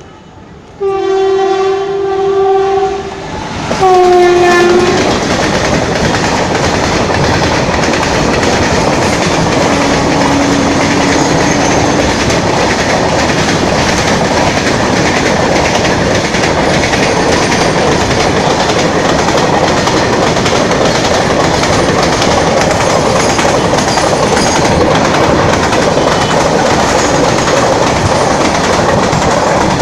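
WAG-7 electric locomotive's air horn sounding two blasts, a long one and then a shorter one whose pitch drops at the end as it draws level, followed by the loud, steady clatter of the locomotive and its train running through the station at speed.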